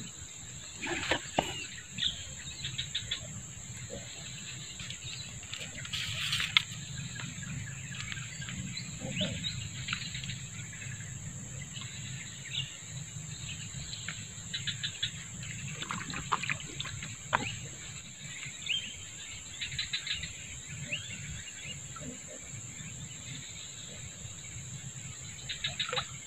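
Swamp-side outdoor ambience: a steady high-pitched insect drone with many short, scattered bird chirps. A few faint clicks or rustles come now and then.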